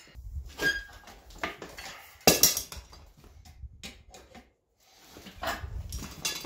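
Sharp metal clanks and clinks of steel bar stock and smithing tools being handled, one with a short ring; the loudest clank comes a little over two seconds in.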